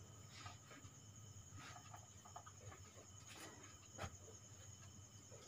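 Near silence: room tone with a faint steady hum and a few faint scattered clicks, the clearest about four seconds in.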